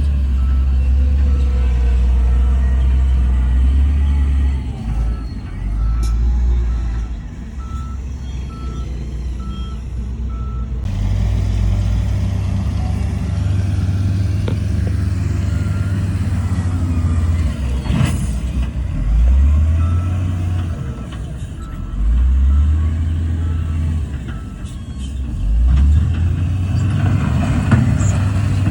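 Heavy diesel earthmoving machinery running, the engines revving up several times, with a reversing alarm beeping at a steady pace for the first third and again later on.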